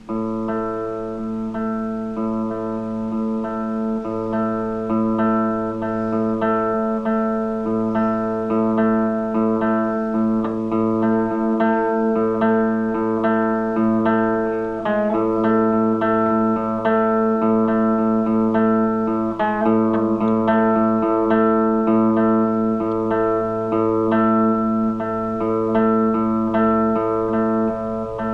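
Solo electric guitar playing an instrumental: picked notes repeat in a steady rhythm over low notes left ringing underneath.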